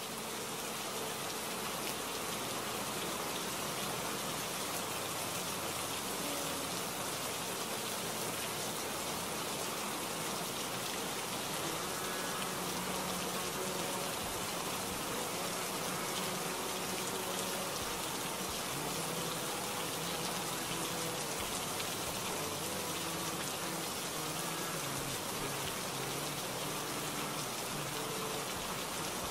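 Steady rain noise, with a slowed-down pop song mixed faintly underneath.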